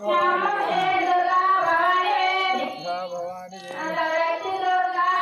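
Devotees singing a devotional chant in high voices, with long held notes and a brief pause about three seconds in.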